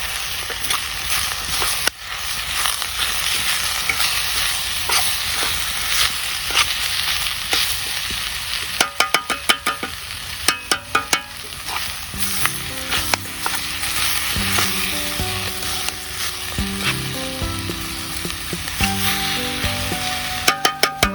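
Food sizzling steadily in a frying pan, with two quick runs of rapid tapping and scraping from a utensil stirring it about nine and eleven seconds in. Soft background music with a simple melody comes in about halfway.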